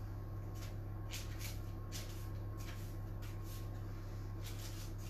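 Soft rustles and light taps of cut squares of scone dough being set down one by one on a parchment-lined baking sheet, about ten brief sounds over a steady low hum.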